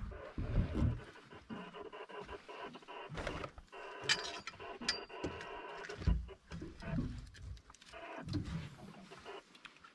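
Irregular knocks, clatters and rustling of gear being handled on a boat deck as the landing net with a freshly caught coral trout is brought aboard, with a short high squeak about halfway through.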